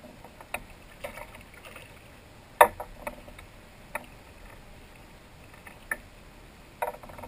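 Sharp knocks and clicks against a kayak's hull, with light water sounds, as a hooked smallmouth bass is lifted from the water and unhooked; the loudest knock comes about two and a half seconds in.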